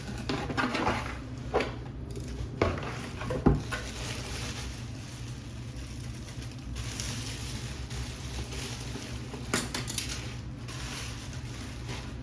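Plastic and paper packaging being torn open and handled, rustling and crinkling, with a few sharp knocks and crackles in the first few seconds and another crackly burst near ten seconds in.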